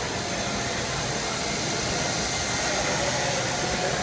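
Small electric quadcopter whirring steadily as it hovers and flies overhead, against the constant background noise of a large indoor hall.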